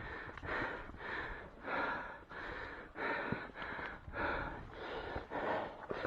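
A person breathing hard and fast, about two breaths a second: panting from the effort of climbing a steep, rocky slope.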